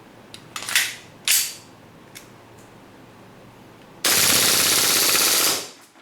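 WE Glock 18 gas-blowback airsoft pistol with a steel slide: two sharp clacks, then about four seconds in a loud full-auto burst lasting about a second and a half, the slide cycling with each shot.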